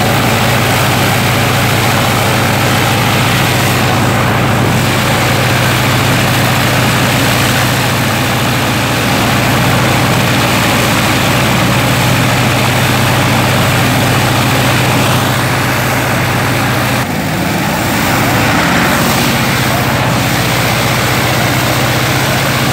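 Jacobs seven-cylinder radial aircraft engine running on a test stand, turning a two-blade propeller with a loud, steady low drone. About three-quarters of the way through, the engine's note briefly dips and shifts, then settles back to the same steady running.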